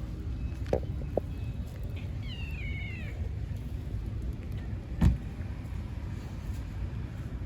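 A stray cat meows once, a short wavering high-pitched call, over a steady low rumble of street traffic. A sharp thump about five seconds in is the loudest sound.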